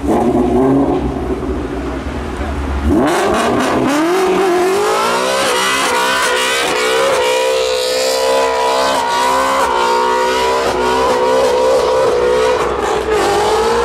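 Ford Mustang V8 in a burnout: a lower engine note for about three seconds, then the revs climb steadily and are held high, around 8,000 rpm, wavering a little as the rear tyres spin.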